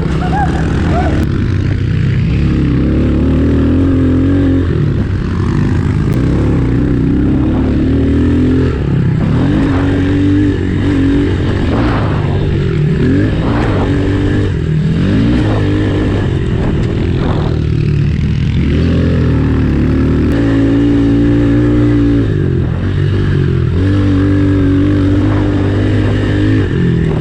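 Honda CRF110F pit bike's small single-cylinder four-stroke engine being ridden hard on a dirt track. It revs up and drops back again and again as the throttle is opened and closed.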